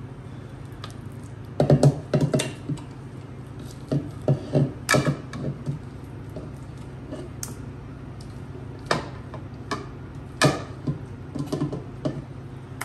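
A silicone spatula scraping and knocking against a ceramic mixing bowl and a glass baking dish as thick shredded-potato mixture is scooped out and dropped in. Irregular clusters of knocks and soft thuds sound over a steady low hum.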